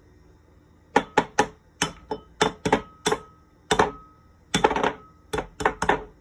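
Shells of soft-boiled eggs being tapped and cracked for peeling: a run of sharp, irregular taps, some in quick clusters, starting about a second in.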